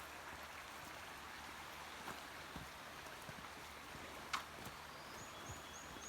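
Faint outdoor trail ambience: a steady hiss with scattered light ticks, one sharper click about four seconds in, and five quick high chirps in a row near the end.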